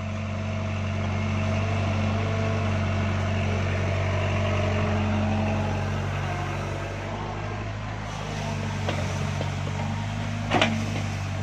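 Hydraulic excavator's diesel engine running steadily, with a steady higher whine over it, as the bucket lifts a coconut palm by its root ball and sets it down. A single sharp knock near the end.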